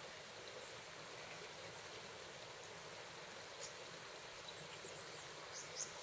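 Faint outdoor ambience of a creek: a steady hiss of gently running water with insects, and a few brief high chirps around the middle and near the end.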